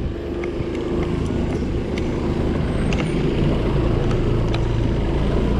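Motorcycle ridden over a rough road: a steady engine drone under road and wind noise, with scattered clicks and rattles.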